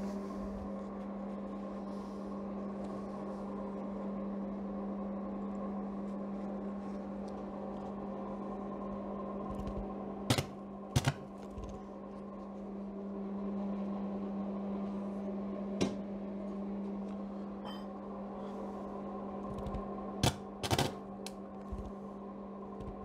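Arc welding machine humming steadily while a brake shaft is stick-welded, with a few sharp clicks: a pair about ten seconds in, one near sixteen seconds and another pair near twenty seconds.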